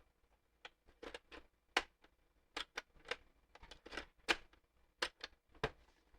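Irregular clicks and light knocks of puzzle box parts being handled, pushed and tried, about a dozen in all, with the sharpest ones near two seconds in and past the middle.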